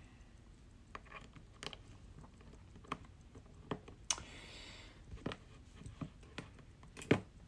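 Faint, scattered sharp clicks and taps of small metal watchmaker's tools on a mechanical watch movement, with a brief scratchy rustle about four seconds in, as the movement is handled to let down the mainspring.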